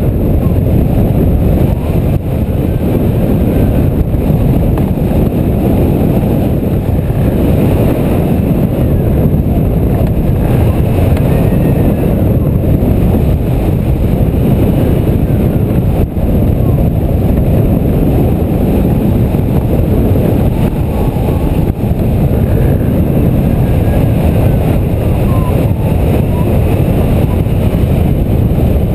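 Steady, loud rush of airflow buffeting a wing-mounted camera's microphone on a hang glider in flight.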